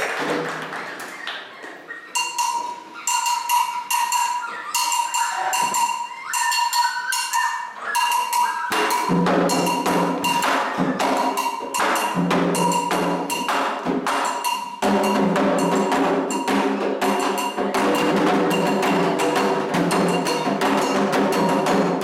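Candomblé percussion: a metal agogô bell struck in a fast, steady pattern, joined about nine seconds in by atabaque hand drums. The drumming grows fuller about halfway through. This is a toque, the ritual rhythm, for the orixá Ogum.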